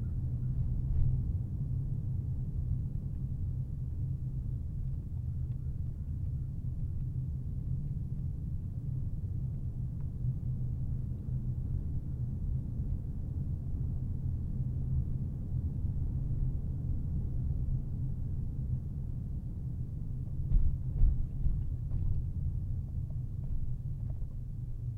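A car driving, heard as a steady low drone of tyres and engine. A few knocks from bumps come about a second in and several more around twenty seconds in.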